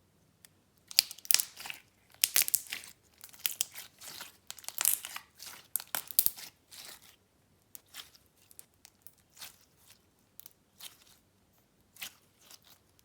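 Slime being squished and stretched by hand, giving irregular crackling and popping, busy and loud at first and then sparser and softer.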